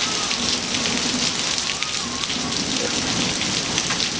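Heavy rain falling steadily, with many individual drops spattering close by.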